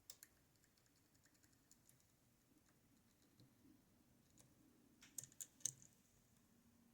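Faint metallic clicks and ticks of a lock pick probing the pin stacks of a West 917 high-pin-count lock, with a quick cluster of sharper clicks about five seconds in.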